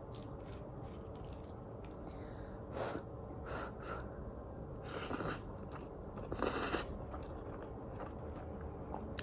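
A person eating creamy instant noodles (Samyang cooked with milk): a handful of short, separate mouth noises of eating, the longest about five and six and a half seconds in.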